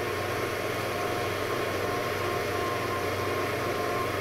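KitchenAid stand mixer running steadily at speed 4, its motor humming as the whisk beats egg whites and sugar for meringue.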